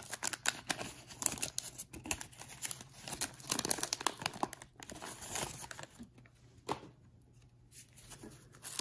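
Waxed-paper wrapper of a 1985 Topps football wax pack being torn open and crinkled: a dense, irregular crackle for about six seconds, then only a few soft clicks.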